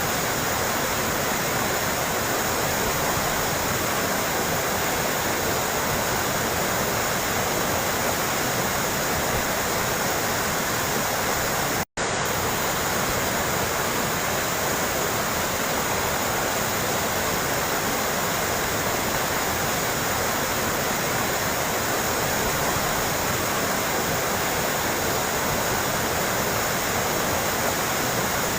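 Water splashing and trickling steadily, like a small stream or fountain, with a momentary dropout to silence about twelve seconds in.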